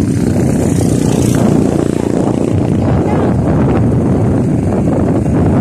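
Wind rushing and buffeting over the microphone of a moving motorcycle, mixed with the motorcycle's engine and tyre noise on the concrete road.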